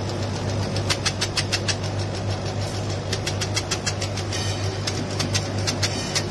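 CO2 laser engraving machine with a rotary attachment engraving a glass bottle: rapid, regular ticking, about seven ticks a second, over a steady low hum.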